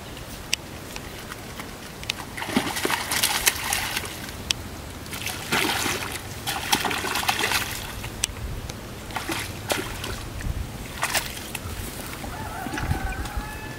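A hooked catfish thrashing and splashing in shallow muddy water as it is hauled out, in several bursts of splashing, the longest two in the first half and shorter ones after.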